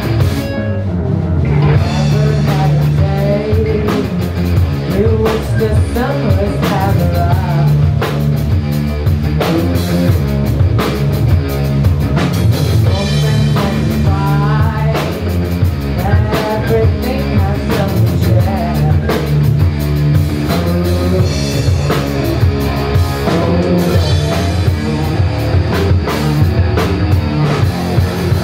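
Rock band playing live: electric guitar through a Marshall amp, electric bass and drum kit, loud and continuous.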